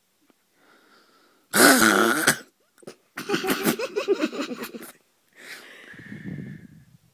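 Loud snoring in three breaths: a short harsh snort about a second and a half in, a longer snore with a rapid flutter from about three to five seconds, then a lower, quieter snore near the end.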